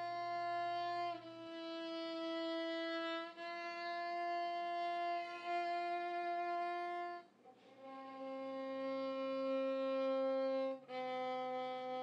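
Solo violin score playing slow, long-held single notes, each lasting a few seconds. After a short break about seven seconds in, the melody moves lower.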